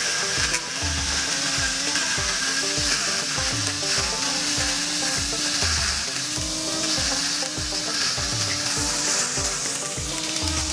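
BITEC BGT R12/2 Li-NC 12-volt cordless grass trimmer running, its spinning cutting head slicing grass with a steady hiss. Background music with a steady beat plays underneath.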